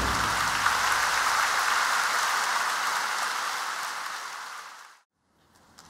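Large arena audience applauding at the end of a song, fading away to silence about five seconds in.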